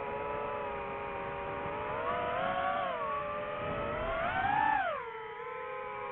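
DJI FPV drone's electric motors and propellers whining, the pitch rising twice as the throttle is pushed and falling steeply about five seconds in as it is eased off.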